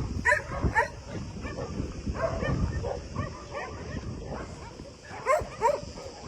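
Dogs yipping and whining in short, excited calls, with two louder yelps near the end.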